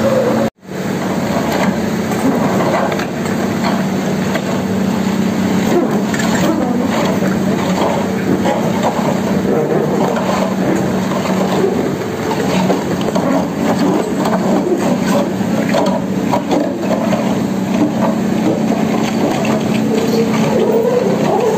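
Kobelco SK200 hydraulic excavator's diesel engine running steadily under working load, with a constant low hum and mechanical noise as the machine handles a bored-pile casing pipe. The sound cuts out for an instant about half a second in.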